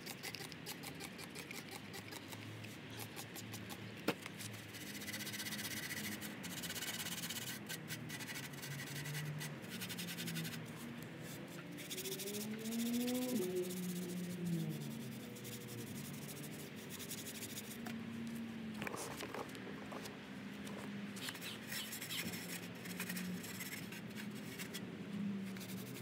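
A rag rubbing and wiping over the engine housing of a Briggs and Stratton edger, with spray-bottle squirts of cleaner, in irregular stretches of scrubbing hiss. There is one sharp click about four seconds in.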